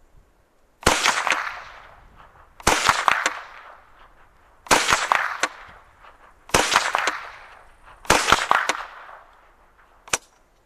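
A pistol fired five times, about one shot every two seconds, each report trailing off over about a second, with one shorter, sharper crack near the end.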